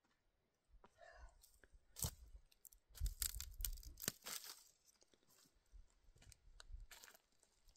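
Footsteps crunching and rustling over dry reeds and straw on a dirt path, as irregular crackles that are thickest about three to four seconds in.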